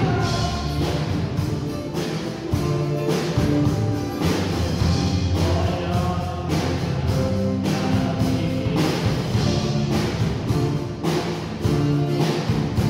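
Rock band playing an instrumental passage without vocals: drum kit keeping a steady beat under bass guitar, electric guitars and acoustic guitar.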